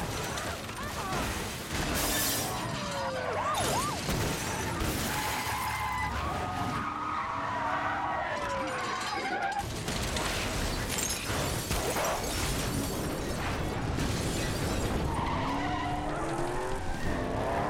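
Film car-chase sound mix: car engines running hard and tyres skidding, broken by repeated crashes with metal scraping and glass shattering.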